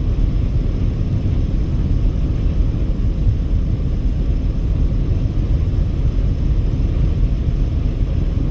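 Car driving at highway speed: a steady, low rumble of tyre, road and engine noise.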